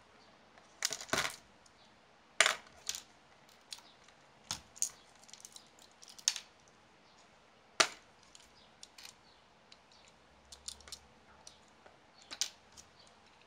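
Irregular sharp clicks and light clacks of small plastic and metal parts of a 1/28-scale RC car chassis being handled and pulled apart by hand. A few louder knocks stand out, the loudest about a second in and near eight seconds in.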